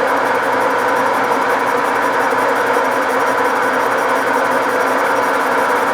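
Metal lathe running steadily while facing a cast pulley: a constant machine hum with several steady tones.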